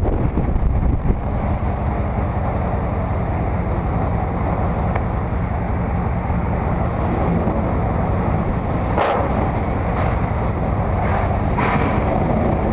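Steady low rumble of a running vehicle, engine and road noise, with a few short knocks about nine to twelve seconds in.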